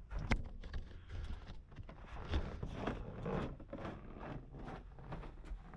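Rustling, scraping and irregular light knocks of someone handling gear, with a sharp click about a third of a second in.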